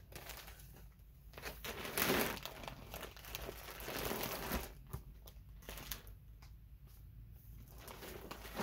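Plastic packaging crinkling and rustling as a black plastic bag and the clear plastic wrap around bundles of yarn are handled and pulled out, in irregular rustles that are loudest about two seconds in and again around four seconds in.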